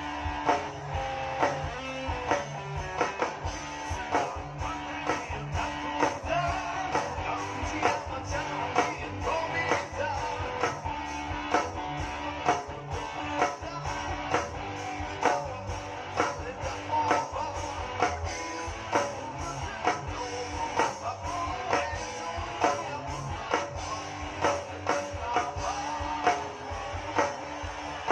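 Live rock band playing: electric guitars strumming and picking over a steady beat.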